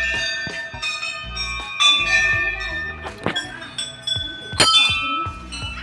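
Hanging brass temple bells rung again and again, clang after clang, their ringing tones overlapping and blending. The loudest strikes come about two seconds and four and a half seconds in.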